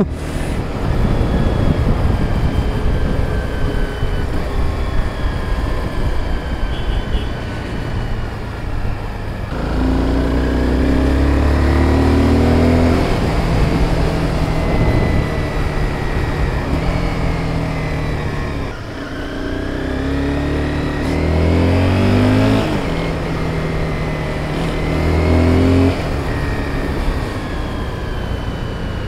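Sport motorcycle engine running under way, its note rising and falling several times as the throttle opens and closes, with steady wind noise over it.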